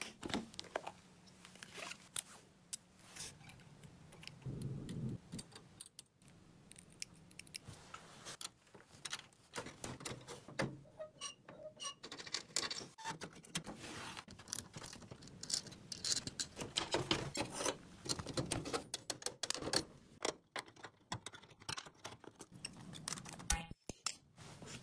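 Workshop handling sounds: a long run of small clicks, taps and light metallic clatter, like tools and car parts being picked up and set down. A low steady hum sits under the first several seconds.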